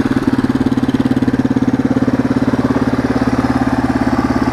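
Yamaha TT-R225's single-cylinder four-stroke engine idling steadily as it warms up, with an even, rapid putter. To the ear it sounds like a two-stroke.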